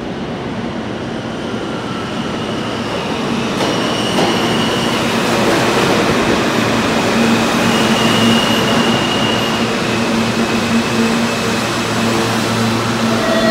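An R160 New York City subway train entering an underground station and slowing: the wheels rumble loudly on the rails, with short high wheel squeals about four and eight seconds in. A steady low hum grows stronger in the second half as the train slows.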